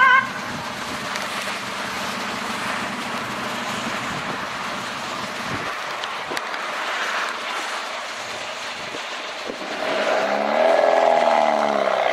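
Fire-service response cars driving on a wet road: steady tyre hiss and engine noise. About ten seconds in, an engine note rises and then falls in pitch.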